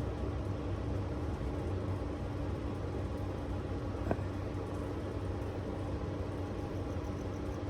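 Steady low hum of a distant engine, with one short faint click about four seconds in.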